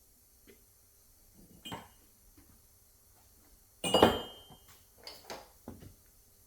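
Scattered light knocks and clatter of metal tools and parts being handled, with one loud, sharp metallic clank about four seconds in that rings briefly, followed by a few smaller knocks.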